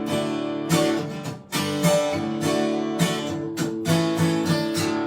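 Acoustic guitar strumming chords in a steady rhythm, the solo intro to a country song.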